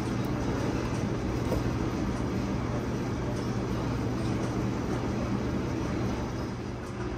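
Steady machine hum with a low drone, even in level throughout, with a few faint light clicks over it.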